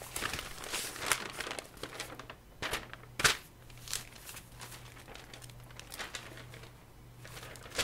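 Paper rustling and crinkling as a spiral notebook is handled, in irregular bursts with one sharp crackle a little past three seconds in, then quieter rustles. A faint steady low hum runs underneath.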